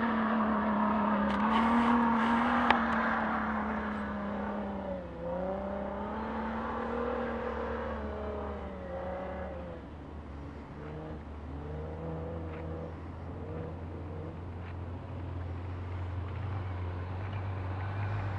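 Jeep Wrangler's Pentastar V6 through a Magnaflow exhaust, working hard under load as the Jeep climbs a sand dune. The engine note wavers with the throttle, dips and recovers about five seconds in, fades as the Jeep reaches the crest, and grows louder again near the end as it heads back down.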